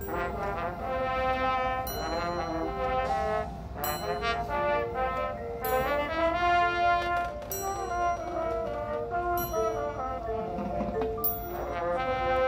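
Marching band playing live, the brass horn line sounding sustained chords over the front-ensemble percussion, with sharp accented hits about every two seconds.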